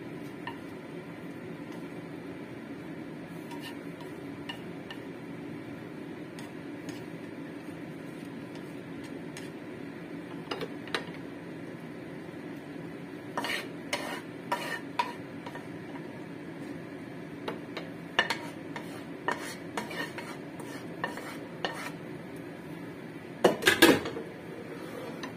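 Wooden chopsticks and a wooden spatula scraping and tapping against a nonstick frying pan as stir-fried bok choy is slid out onto a plate, with scattered clicks and taps over a steady low hum. A louder burst of clatter comes near the end.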